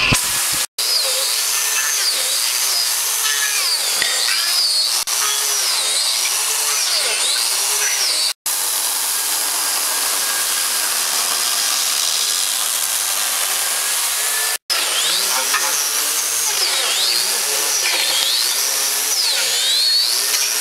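Electric angle grinders fitted with wood-carving cutters, running as they bite into a log. The motor whine keeps dipping and recovering in pitch as the cutter loads up, and the sound breaks off briefly at three edit cuts. The middle stretch runs steadier.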